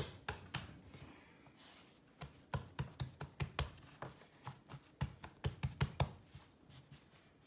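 Hands kneading and folding a soft ball of tortilla dough on a floured countertop: a run of soft thuds and taps as the dough is pressed down and turned, coming thicker and faster in the second half.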